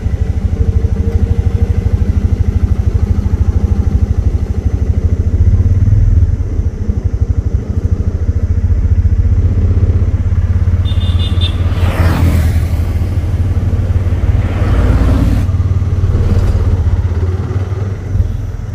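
Auto-rickshaw's small engine running steadily with a dense, fast low rumble. A brief high beep comes a little before the middle, and a few louder whooshes follow past the middle.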